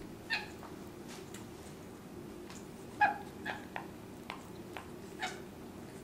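Nanday and jenday conures giving short, sharp calls, about six in all, the loudest about three seconds in. This is the flock's "goodie" call, announcing the food on the plate to the African grey.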